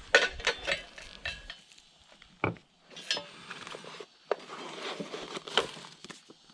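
Metal tool attachments and fittings clinking and knocking as they are handled: a quick run of clicks, then a single louder knock a couple of seconds in. A stretch of rustling follows in the second half.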